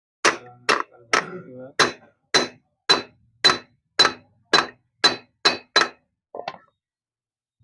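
Hammer peening new rivets into a Yamaha FZS motorcycle clutch housing. About a dozen sharp metallic blows come roughly twice a second, then one lighter tap near the end. The rivets are being replaced because the old ones had worn through.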